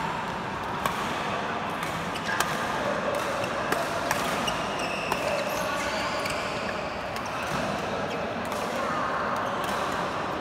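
Badminton rackets hitting shuttlecocks: several sharp hits at irregular intervals, roughly one every second or so, echoing in a large sports hall over a bed of indistinct players' voices.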